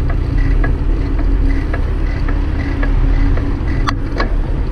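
Riding noise from a bicycle on a paved trail: a steady low rumble of wind on the bike-mounted camera's microphone and tyres on asphalt, with light clicks and rattles from the bike and two sharper clicks about four seconds in.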